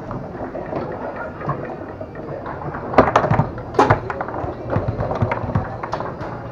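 Foosball play on a Tornado table: the hard ball struck by the plastic men and rods knocking, with two sharp cracks about three and four seconds in and lighter clicks after, over a low background murmur.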